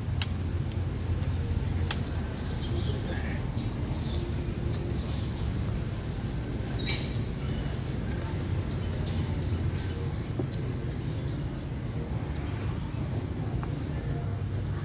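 A steady, high-pitched insect drone holding one unchanging tone, over a low rumble, with one brief sharp click about halfway through.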